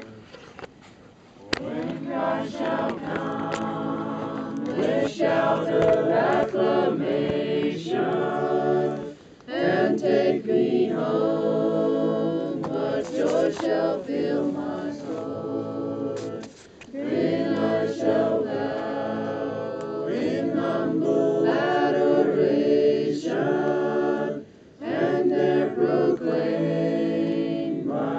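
A group of voices singing together a cappella, without instruments, starting about a second and a half in and going on in long phrases with three brief breaks for breath.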